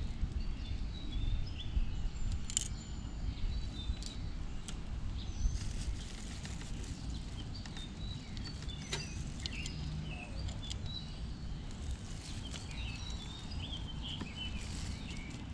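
Birds chirping in scattered short calls over a steady low rumble, with a few sharp clicks.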